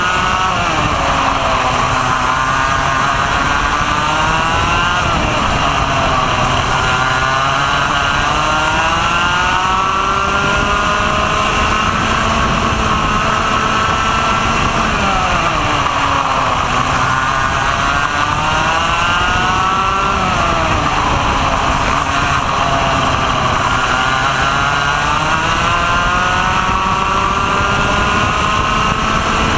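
Vortex ROK two-stroke kart engine heard onboard under racing load, its pitch climbing steadily along each straight and dropping sharply as the driver lifts for each corner, six or seven times over.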